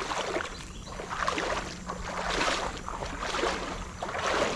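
Creek water splashing and sloshing in uneven surges, about one a second.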